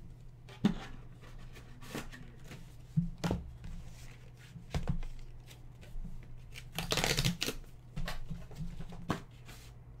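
Trading cards in rigid plastic holders and paper envelopes handled on a desk: scattered light taps and clicks as holders are set down and picked up, with a longer papery rustle about seven seconds in as an envelope is handled.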